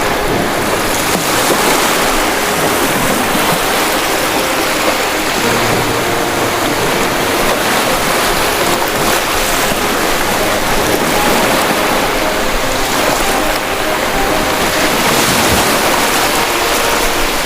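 Ocean waves breaking and washing ashore in a continuous, even rush of surf.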